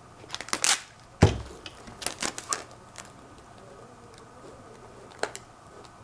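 Clear packing tape and a tape-covered box being handled on a newspaper-covered table: a couple of crinkly scrapes, then a solid thump just over a second in, a run of crackly clicks around two seconds in, and one more click near the end.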